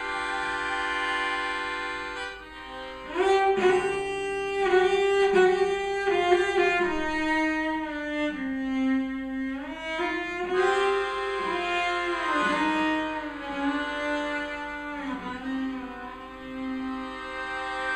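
Melodica and cello playing together: held, reedy melodica notes moving in steps over a bowed cello line, with rhythmic strokes and a rise in loudness starting about three seconds in.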